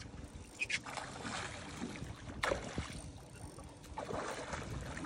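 Water splashing in several short bursts as a hooked sheepshead thrashes at the surface near the boat.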